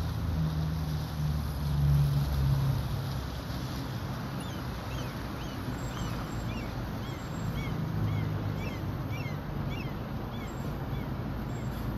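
City bus driving slowly past with a low drone, loudest for the first three seconds, fading, then swelling again for a moment later on. From about four seconds in, small birds chirp over and over.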